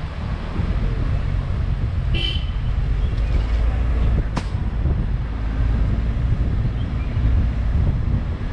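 A vehicle horn gives one short toot about two seconds in, over the steady low rumble of a vehicle on the move. A single sharp click comes about two seconds after the toot.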